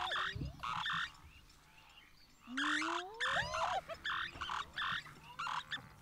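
Spotted hyena whooping: long calls that rise steadily in pitch, one ending about half a second in and another starting about two and a half seconds in, with short harsher calls around them.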